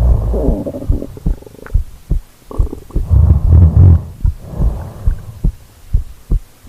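A sleeping woman's heartbeat and breathing heard very close up, as if through her body: repeated muffled low thumps, with slow heavy breaths and a loud low snore-like swell about three seconds in.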